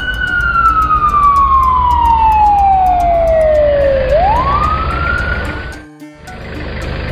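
Fire engine siren, one slow wail that falls steadily for about four seconds, rises back up and cuts off about six seconds in, over a low engine rumble. A steady engine idling takes over near the end.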